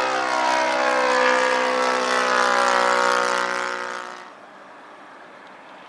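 Radio-controlled warbird model plane's engine and propeller flying past, a steady droning note sliding slowly down in pitch, then dropping away sharply about four seconds in.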